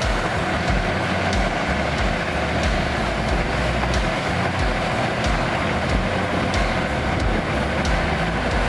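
A heavy crawler dozer's diesel engine running steadily, with light metallic clicks repeating about every two-thirds of a second.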